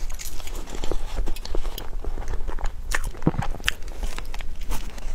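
Close-miked eating sounds of a person eating black sesame sawdust dessert: bites and chewing, with scattered wet mouth clicks.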